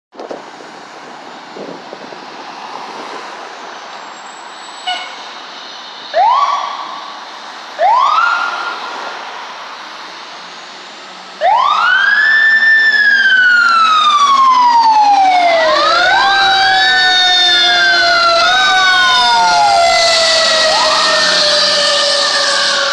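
Fire truck siren on a tractor-drawn aerial ladder truck leaving the station. Street noise first, then two short whoops about six and eight seconds in. From about halfway through, a loud siren wail winds up quickly and slowly falls in pitch, and is wound up again several times.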